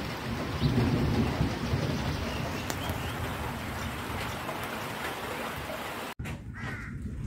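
Heavy rain pouring steadily, with a low rumble swelling about a second in. Near the end the sound breaks off abruptly and gives way to a duller, quieter hiss.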